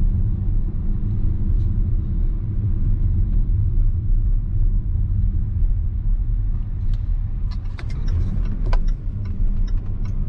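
Car interior noise while driving: a steady low rumble of engine and tyres, with a scatter of light clicks and ticks in the last few seconds.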